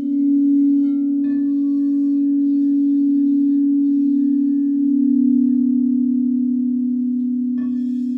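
Crystal singing bowls sounding a loud, steady low tone with a slow wavering pulse. A higher bowl is struck about a second in and again near the end, and its ringing overtones sit above the drone.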